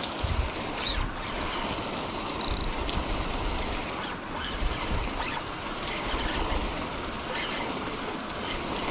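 Wind buffeting the microphone over a steady rushing hiss, with a few faint short high chirps here and there.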